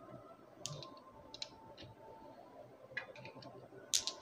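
Marbles rolling down a wavy wooden marble-run channel, clicking and knocking against its curved walls. The clicks come at irregular intervals, with a quick cluster about three seconds in and the loudest knock near the end.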